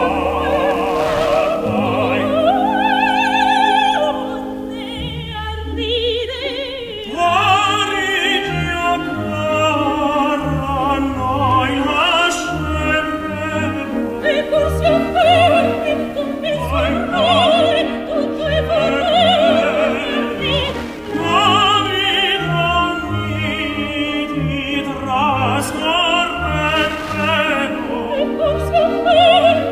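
Opera playing on a radio tuner: a classical-music FM broadcast from ABC Classic FM Perth on 97.7 MHz, received over long distance. An operatic voice sings with strong vibrato over instrumental accompaniment.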